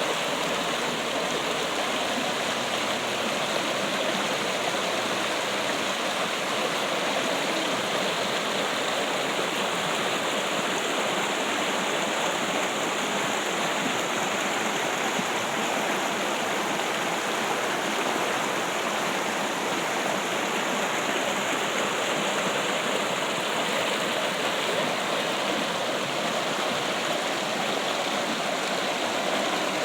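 Steady trickling and rushing of a stream of water, an even flow with no breaks.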